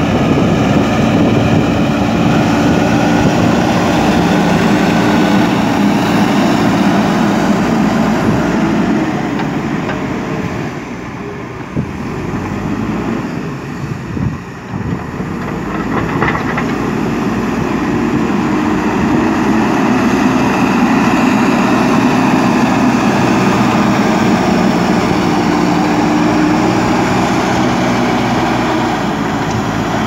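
JCB 3DX backhoe loader's diesel engine running steadily under load as the front bucket pushes and levels soil. It drops quieter for a few seconds around the middle, with a couple of knocks, then picks up again.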